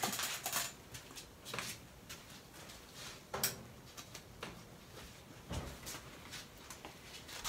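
Faint handling noises as a paper napkin is fetched: scattered light knocks and rustles, with one sharper knock about three and a half seconds in.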